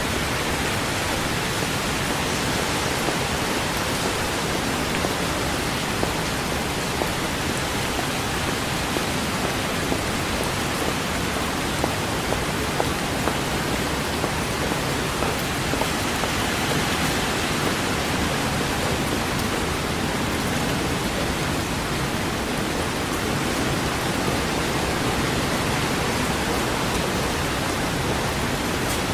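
Steady rain: a dense, even hiss with a few brief, slightly louder drop ticks. No thunder is heard.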